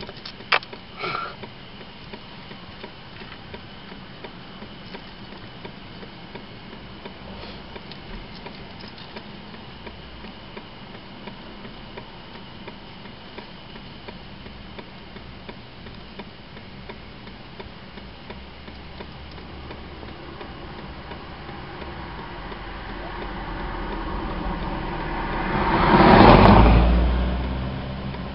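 A car passing on the road, its tyre and engine noise swelling for several seconds to its loudest about 26 seconds in, then fading. Before it there is only a steady low background hum, with a few sharp clicks in the first second.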